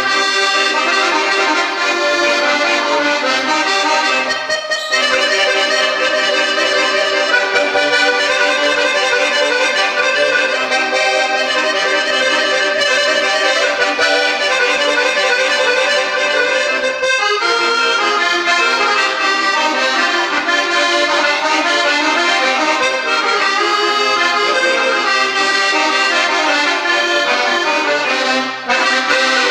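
Piano accordion played solo: a continuous tune with melody and chords, with short breaks in the phrasing about four and seventeen seconds in.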